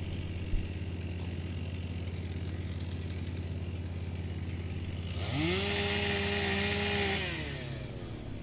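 Wood chipper's engine running steadily, then about five seconds in it rises in pitch as wood is fed through and chipped, with a loud noisy chipping sound for about two seconds before the pitch falls away again.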